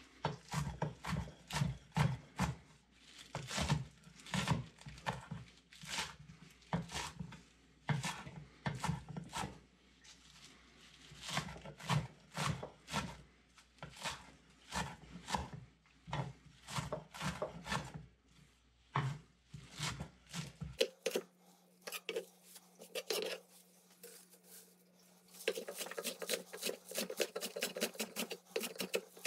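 Irregular series of clinks and knocks of hard objects being handled, two or three a second. About 21 seconds in, the background switches to a steady low hum, and near the end comes a quicker run of lighter taps.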